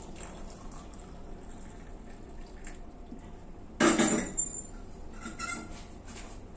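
A metal saucepan of hot water is lifted off a gas stove's burner grate with a sudden clatter about four seconds in, followed by a few light ringing clinks.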